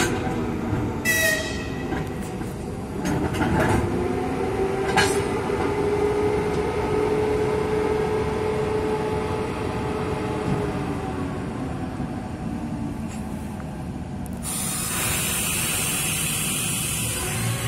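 Electric locomotives standing at a station, their running machinery giving a steady hum and whine, with a tone that glides and then settles about four seconds in. Short hisses come about one and five seconds in, and a loud steady hiss fills the last three seconds.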